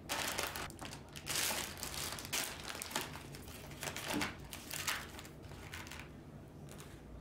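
Plastic food packaging crinkling and rustling in a series of short bursts as groceries are handled and set down on a table, thinning out over the last second or two.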